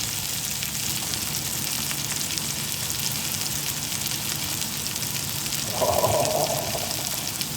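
Steady hiss of water spraying from a garden sprinkler, with a brief mid-pitched sound about six seconds in.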